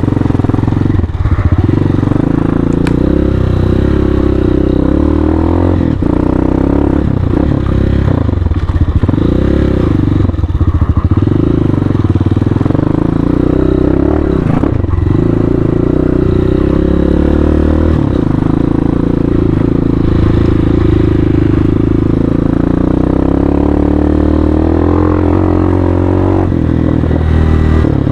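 CSC Hawk 250 dual-sport motorcycle's single-cylinder engine running while being ridden off-road, the revs repeatedly rising and falling with the throttle. Occasional knocks and clatter from the bike over rough ground.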